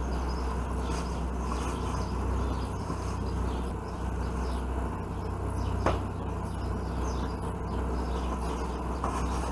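A steady low buzzing hum, like a machine or mains hum, with faint scattered clicks and one sharp knock about six seconds in.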